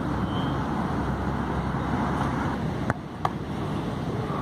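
Two sharp thuds of a football, about a third of a second apart, roughly three seconds in, over a steady outdoor background rumble.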